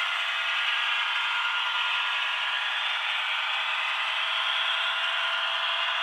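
OO gauge model train, a Heljan Class 52 diesel with bogie hopper wagons, running steadily on the layout: a constant rolling rattle of small wheels on the track with a steady whir.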